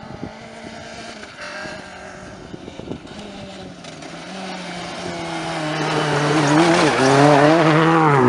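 Peugeot 208 R2 rally car's 1.6-litre four-cylinder engine at full throttle, approaching at speed on gravel and growing steadily louder, with a brief dip in revs about seven seconds in before it pulls hard again and is loudest at the end as it reaches the camera.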